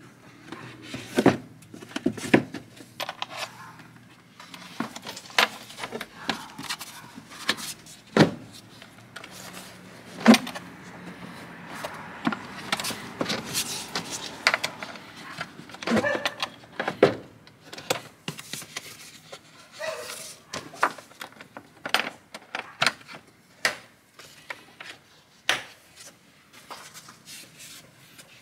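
Irregular plastic clatter, knocks and clicks from a 2018 Toyota Tacoma's engine air filter being seated in its plastic airbox, the lid pressed down and its metal spring clips latched by hand.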